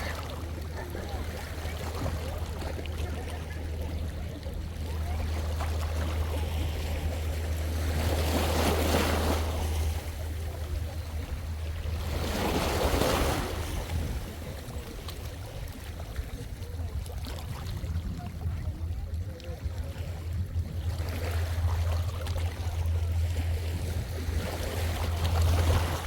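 Small sea waves washing onto the shore in slow swells, two of them stronger about eight and twelve seconds in, over a steady low rumble of wind on the microphone.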